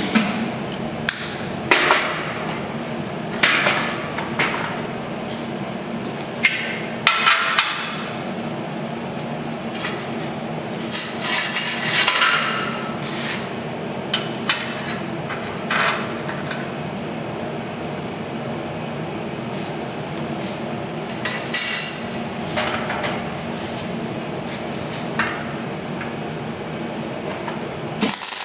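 Irregular metallic knocks, clanks and clinks as steel tube sections and clamps are handled and knocked into position for welding, over a steady background hum.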